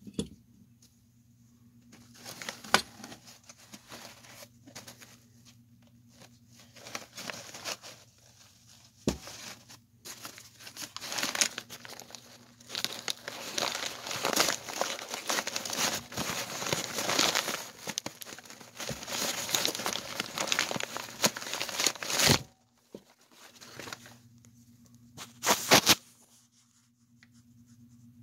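Rubber gas mask and its straps being handled right against the phone: irregular rustling and scraping in long bursts, with a few sharp knocks.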